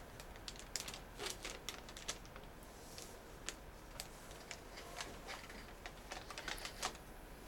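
A paper-and-plastic sterile peel pouch holding forceps being handled and peeled open, with scattered soft crinkles and crackles that come thickest near the end.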